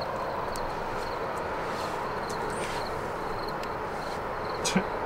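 Steady outdoor background noise with a faint, short high chirp repeating about twice a second, and a single sharp click near the end.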